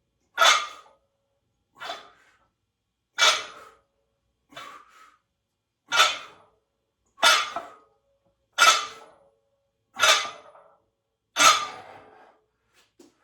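A man's sharp, forceful exhalations, one with each rep of a set, nine of them, about one every second and a half.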